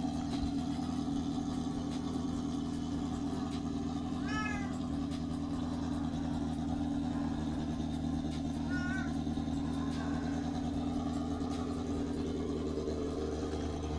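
Four-cylinder motorcycle engine swapped into a Hyosung Comet 250 running steadily at one speed, the unfamiliar four-cylinder note in a Comet frame. A house cat meows twice over it, about four seconds in and again near nine seconds.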